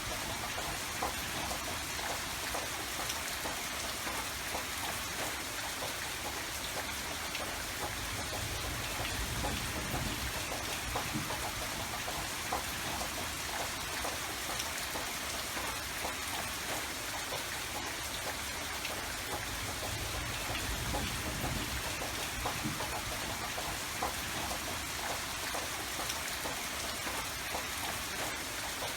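Steady rain falling: an even hiss with many small pattering drop ticks, holding at one level throughout.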